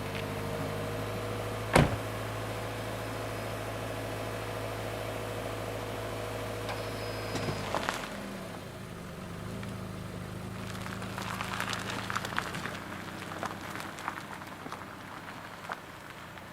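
A motor running with a steady hum and a sharp click about two seconds in; about halfway through the hum changes and partly drops away, leaving a lower hum and light crackling.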